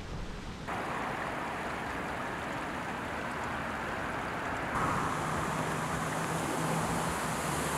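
Steady rush of shallow water running over a drained lake bed. About five seconds in it grows a little louder and a low steady hum joins it.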